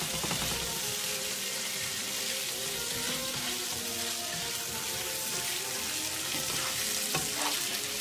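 Shrimp dusted in flour sizzling in olive oil and butter in a skillet, with a steady frying hiss, while a spatula turns them in the pan.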